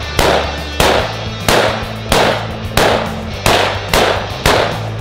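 Handgun shots fired at a steady pace, about eight evenly spaced sharp bangs, each trailing off, over background music with a steady bass line.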